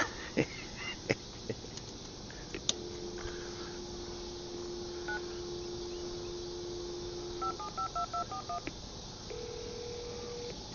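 Entry intercom's telephone line: a few clicks, then a steady dial tone for about five seconds, then about six quick touch-tone keypad beeps as the access code is keyed in, followed by another steady tone near the end.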